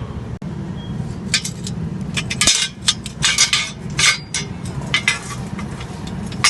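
An irregular run of about a dozen light metallic clinks and clanks from steel pieces being handled or tapped, over a steady low rumble of street traffic.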